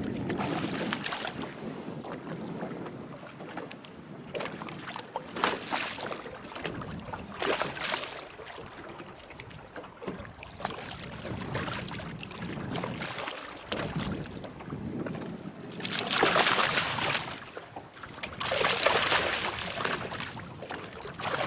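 A hooked barramundi splashing and thrashing at the surface beside the boat, in several bursts, the two loudest near the end. Wind is on the microphone.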